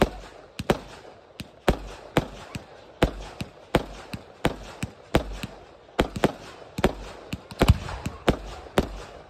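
Aerial fireworks fired in quick succession, a sharp bang about twice a second as they launch and burst, the loudest near the end.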